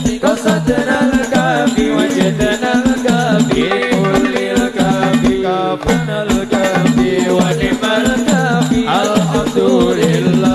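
Islamic devotional singing (sholawat) by a group of male voices, accompanied by hand drums beating a steady, quick rhythm.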